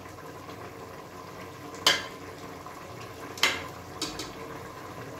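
A perforated metal skimmer stirring through chicken curry in an aluminium pressure cooker and lifting a piece out. Two sharp clinks of metal on the pot come about two and three and a half seconds in, with a lighter one soon after, over a low steady background.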